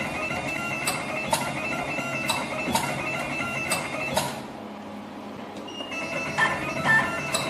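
Automatic wire stripping and twisting machine running: a steady motor whine with sharp clicks about twice a second as the rollers feed and the blades cut and strip. It pauses briefly a little past the middle, then starts the next cycle.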